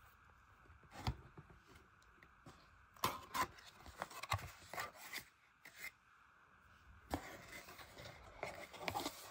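Cardboard watch box being opened by hand: a knock about a second in, then the inner box scraping as it slides out of its cardboard sleeve and the card flaps rubbing as they are folded open, in uneven bursts.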